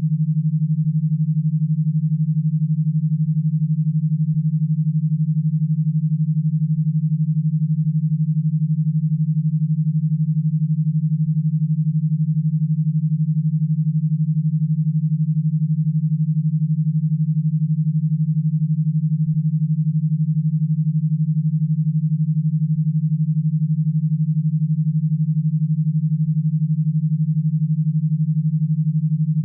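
Synthesized e-stim audio signal: a single low electronic tone held steady, with a fast, even pulse in its loudness.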